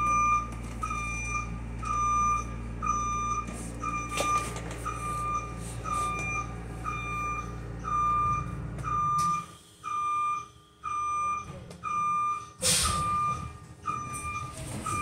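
Electronic warning beeper on a Nova Bus LFSe battery-electric bus, beeping steadily about twice a second. Under it a low hum cuts out about nine seconds in, and a short burst of hiss comes a few seconds later.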